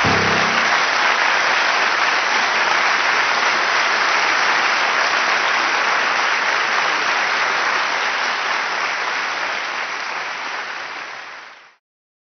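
Concert audience applauding steadily, with the last piano chord dying away in the first moment. The applause fades near the end and cuts off.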